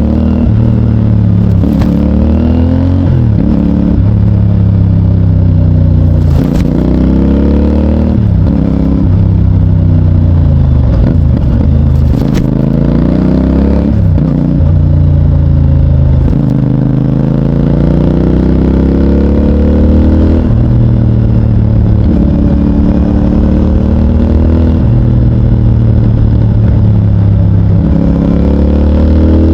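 CFMOTO 450NK parallel-twin engine through its stock exhaust, accelerating hard through the gears. The engine note climbs, drops back at each shift and climbs again, many times over, with brief roll-offs between pulls.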